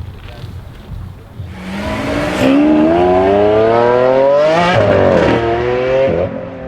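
Lamborghini Urus Performante's twin-turbo V8 through an Akrapovic exhaust, accelerating hard. The engine note climbs for about three seconds, dips sharply at an upshift, climbs again briefly, then falls away near the end as the throttle comes off.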